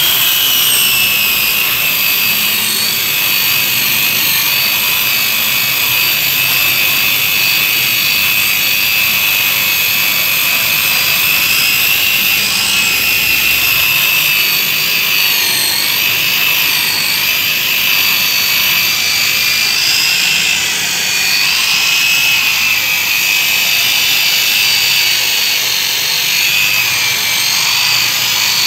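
Electric rotary polisher running steadily with a high whine, its foam pad buffing rubbing compound into a car's painted bumper to take off paint transferred from a scrape. The whine wavers a little as the pad is pressed and moved, and dips briefly about two-thirds of the way through.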